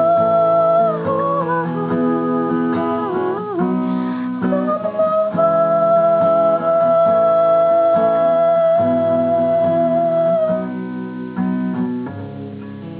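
Acoustic guitar strumming chords between verses of a song, with a long held melody note above it. The note bends down about a second in and is held again from about five to ten seconds; the music quietens near the end.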